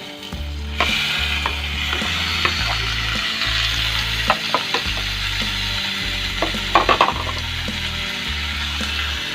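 Minced chicken starts to sizzle in hot oil with softened onion about a second in, and the sizzle holds steady while a spatula clicks and scrapes against the pan as it is stirred, loudest near the end.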